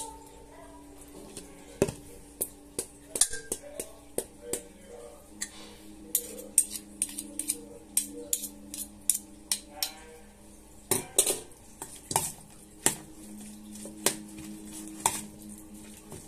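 A metal spoon clinking and scraping against a stainless steel mixing bowl as food is scooped and stirred: many irregular sharp clinks, a few each second.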